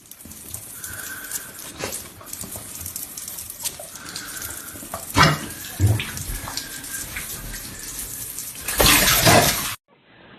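Running water, with scattered knocks and a louder rush near the end.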